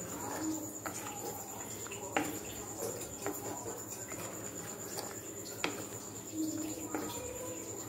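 Wooden ladle stirring a thick coconut chicken curry in a clay pot, knocking against the pot's side now and then with a few sharp clicks, the loudest about two seconds in and shortly before the end. A steady high-pitched chirring runs underneath.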